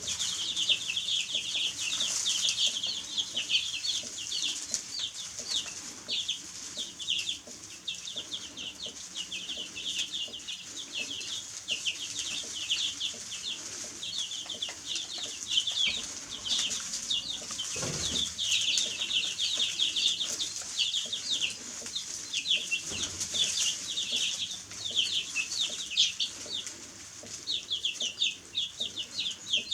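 A brood of baby chicks peeping: many high-pitched chirps overlapping in a constant, busy chorus.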